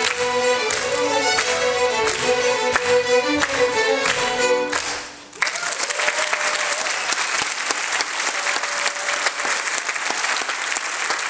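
String ensemble of violins with cello and double bass playing a fiddle tune that ends about five seconds in, followed by audience applause.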